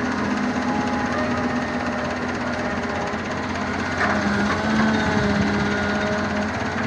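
Work machine running, a rapid mechanical clatter under a steady engine drone whose pitch shifts a little, a bit louder about four seconds in.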